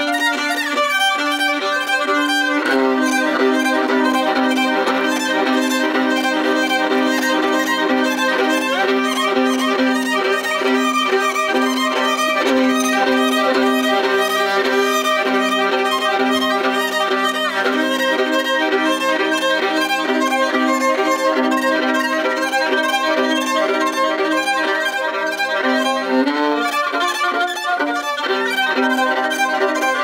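Solo Dahlia5 five-string violin, bowed: a busy, quickly changing melody played over a held low note that shifts pitch a few seconds before the end.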